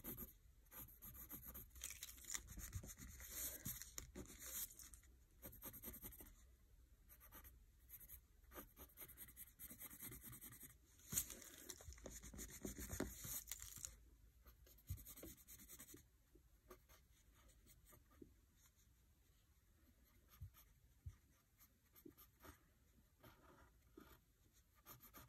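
Faint pencil scratching on lined paper: quick sketching strokes in runs, thinning to a few light ticks over the last third.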